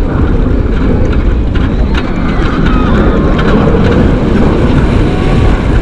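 Loud wind rushing and buffeting over the microphone on a moving roller coaster, a continuous heavy rumble, with faint wavering cries above it.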